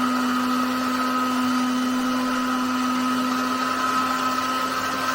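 Electric mixer-grinder running steadily, blending raw goat blood with ground spices into a smooth sausage filling.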